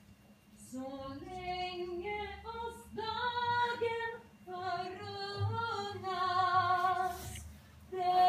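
A single female voice singing a slow melody in phrases, with long held notes, one of them wavering with vibrato near the end.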